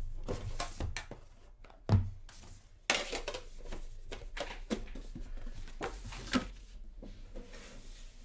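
Cardboard trading-card box being handled and opened: a series of light knocks and clicks, a sharper knock about two seconds in, and a short scraping rustle of cardboard sliding about a second later.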